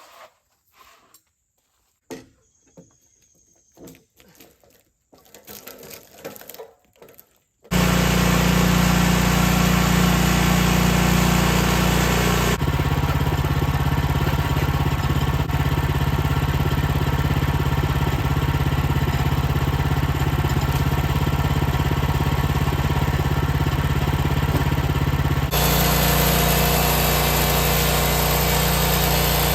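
A few faint scattered knocks. Then, about eight seconds in, a sawmill's engine comes in loud and steady, running on with an even tone that shifts abruptly twice.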